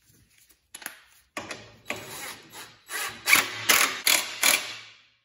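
DeWalt 20V cordless drill with a socket extension driving thread-locked bolts into a go-kart engine mount. It runs in several short trigger bursts that get louder over the last two seconds.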